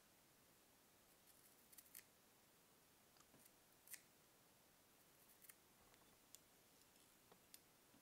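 Small fly-tying scissors snipping a thin strip of tying material: a few faint, short snips spread out, the loudest about four seconds in.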